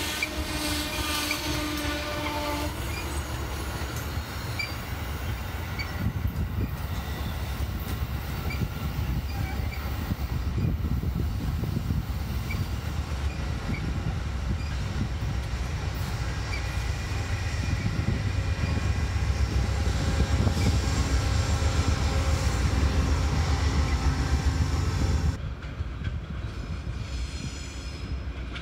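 Amtrak Downeaster passenger coaches rolling past as the train slows to a stop, a steady low rumble of wheels on rail with scattered brief high squeals from the wheels. A held pitched tone sounds for the first two seconds or so. The rumble grows and then cuts off abruptly about 25 seconds in, leaving a quieter background.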